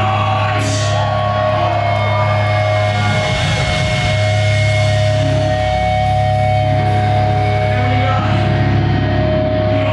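Metalcore band playing live through a loud PA: sustained, droning amplified guitar and bass tones with no steady beat.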